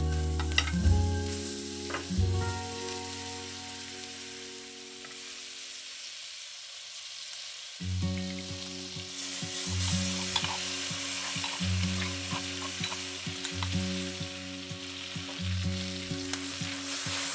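Butter sizzling as it melts in a hot steel wok over charcoal. About eight seconds in, oil with chopped garlic and parsley goes into the wok and the sizzling gets louder.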